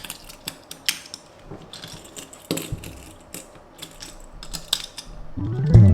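Scattered light clicks and taps from a die-cast toy car and its packaging being handled and put back. Music fades in near the end.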